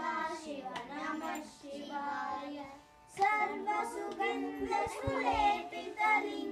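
Children singing a Hindu devotional song together, with a few hand claps keeping time.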